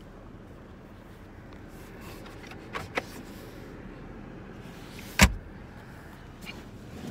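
Clicks and a knock from the trim covers of a Lexus ES350's centre console being worked by hand: two light clicks about three seconds in, then one loud knock about five seconds in, over a steady low background noise.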